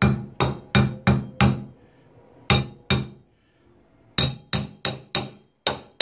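Back of a screwdriver handle tapping a chrome Price Pfister tub/shower faucet handle: sharp knocks at about three a second, five, then a pause and two, then another pause and a run of six. The taps are breaking loose a handle seized onto its stem by hard-water deposits.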